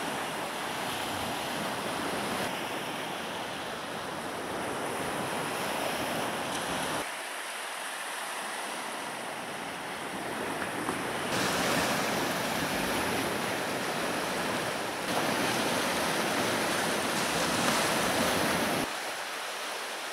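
Sea surf washing onto a sandy beach, with strong wind buffeting the microphone. The sound jumps abruptly in level and depth a few times and is loudest in the second half.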